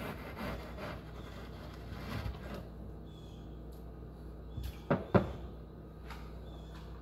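Kitchen knife slicing raw chicken breast into thin strips on a wooden cutting board: soft taps and scrapes of the blade on the wood, then two sharper knocks close together about five seconds in.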